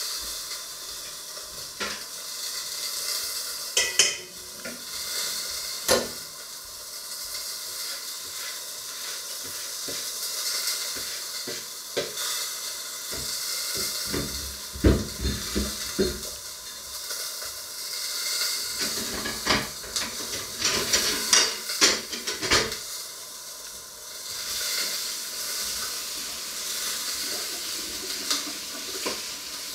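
Steady sizzling of food frying in a pan, with the clatter and clink of pots, pans and utensils being handled, busiest about two-thirds of the way through.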